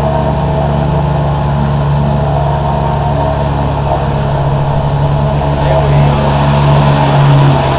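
A pair of vintage 2 hp two-stroke outboard motors, a 1976 Evinrude Mate and a 1984 Johnson Seahorse, running together at a steady speed, getting a little louder about six seconds in.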